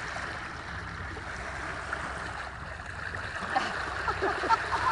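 Water rushing steadily along a sailing yacht's hull under way. From about three and a half seconds in, sharper splashes and gurgles come on top of it.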